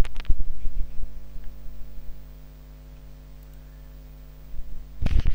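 Steady electrical mains hum in the recording, with a few short clicks in the first second or so.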